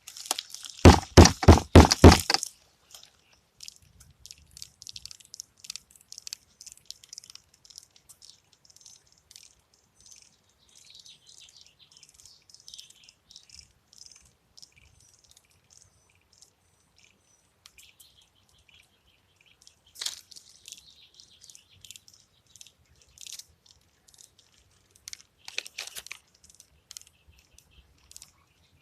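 Rapid knocking on a doghouse, about eight blows in a second and a half, followed by faint, irregular crackling and ticking from the termites inside, stirred up by the knocks.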